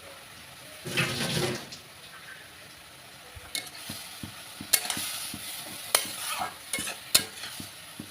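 Grated beetroot sizzling in oil in a kadai while it is stirred with a spatula. From about three and a half seconds in, the spatula scrapes and knocks sharply against the pan, after a brief louder burst of noise about a second in.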